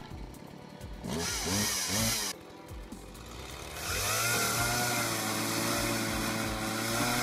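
Two-stroke gas chainsaw revving briefly about a second in, then easing off. From about four seconds in it runs steadily at full throttle as it cuts through a log on a sawhorse.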